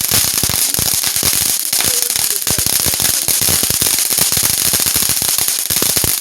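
Consumer firework going off: a dense, continuous stream of rapid crackling pops over a steady hiss.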